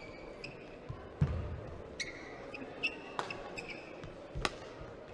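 Badminton rally: racket strings hitting the shuttlecock about every second and a quarter, shoes squeaking on the court mat, and a heavy footfall thud a little over a second in.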